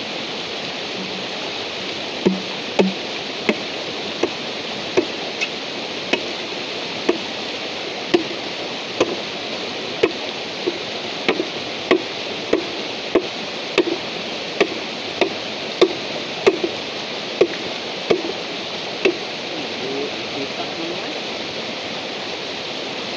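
A machete blade striking a bamboo tube over and over, about one and a half blows a second, stopping a few seconds before the end. Under it runs the steady rush of a shallow stream.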